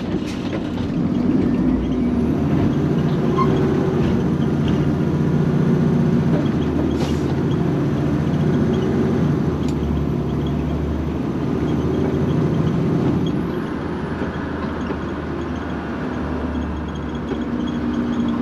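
Garbage truck's engine running, heard from inside the cab as the truck drives on, its pitch rising and falling with speed.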